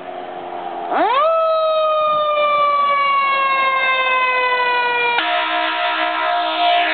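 Fire engine siren rising sharply about a second in, then slowly dropping in pitch. About five seconds in, the truck's air horns take over with a chord of several steady tones sounded in short, repeated blasts.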